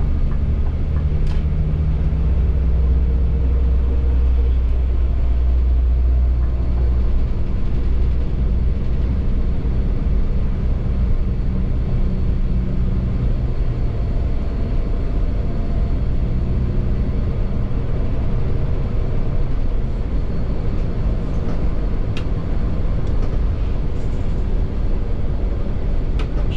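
Scania K360iB bus's five-cylinder diesel engine running under way, with a strong low hum whose pitch drifts up and down as it drives and steady road noise underneath. The hum is heaviest in the first several seconds, then eases.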